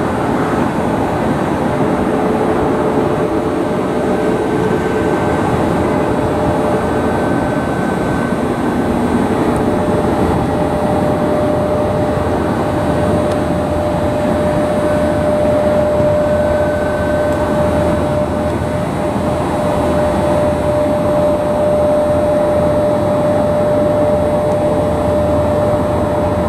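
Jet airliner engines running, a loud, even rush with steady whining tones over it.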